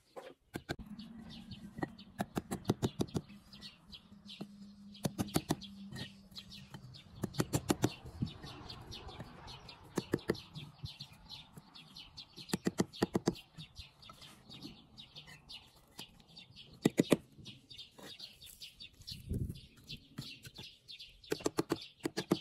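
Bursts of rapid, sharp tapping, several quick strikes at a time, recurring every few seconds.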